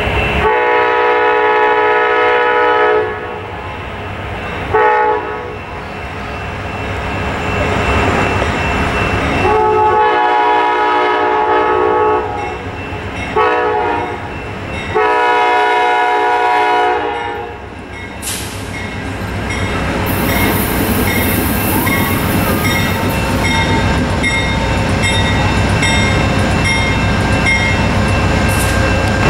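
Locomotive multi-chime air horn sounding five blasts, three long ones with two short toots between them. After that the train rolls by with a steady rumble and regular clicking of wheels over rail joints.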